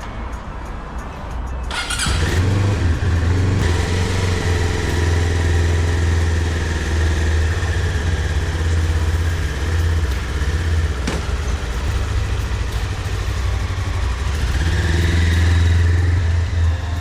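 GR400 motorcycle engine running under way, picked up strongly by the onboard camera; it comes in suddenly about two seconds in and swells near the end.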